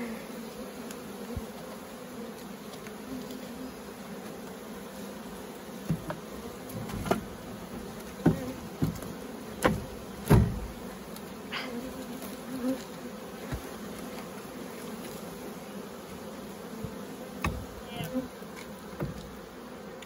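Honeybee swarm buzzing steadily. Several sharp knocks and taps come through, mostly about six to eleven seconds in and again near the end, as pieces of firewood are handled against the tote's metal cage.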